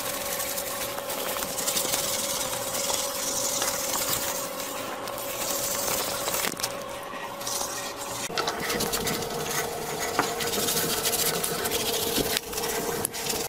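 Steel-wool scourer scrubbing soapy, greasy ceramic tiles by hand: a rough, rasping scrub of many short strokes. A steady hum runs underneath and drops slightly in pitch about eight seconds in.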